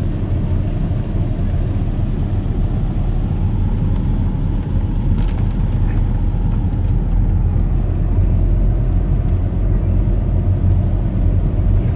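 Steady low rumble inside a moving car's cabin, engine and tyres running on a wet, water-covered road, growing a little louder about two-thirds of the way through.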